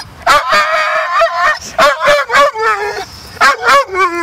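A dog vocalizing in protest as a leash is put on it to leave: a long wavering yowl, then two clusters of short barking yowls with brief pauses between.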